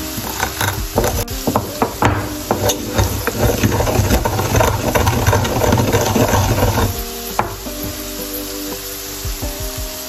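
Wooden pestle pounding and grinding whole spice seeds (coriander, cumin and black pepper) in a wooden mortar: irregular knocks of wood on wood with a crunching, rubbing grind, stopping about seven seconds in. Background music plays throughout.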